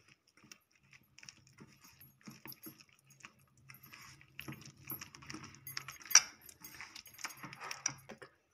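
A hand mixing a wet marinade of egg, corn flour, curd and spices in a stainless steel bowl: faint, irregular wet stirring with small clinks against the bowl, the sharpest about six seconds in.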